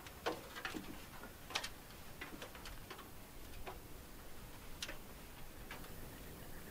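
Faint, irregular light clicks and taps, about a dozen of them scattered over a quiet background.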